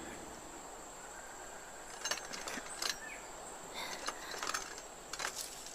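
Quiet ambience with a steady faint high tone, and from about two seconds in a few short, scattered clicks and rustles.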